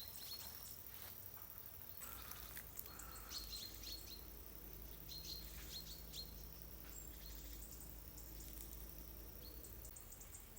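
Faint outdoor ambience with small birds chirping, many short high chirps on and off throughout, over a low steady rumble.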